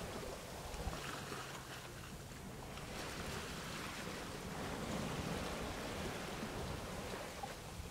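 Steady wind and water noise.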